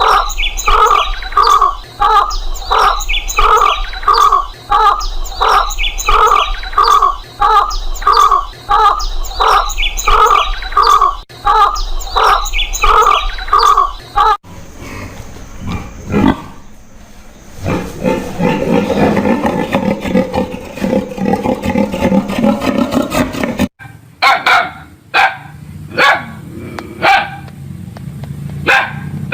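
A string of animal calls in three edited segments. First comes a pitched call repeated about twice a second for some fourteen seconds, then a noisier, busier stretch of calls, then short sharp calls near the end.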